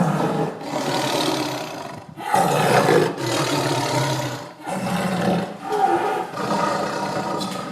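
Tiger roaring, about four long roars in a row, each cut off by a brief gap.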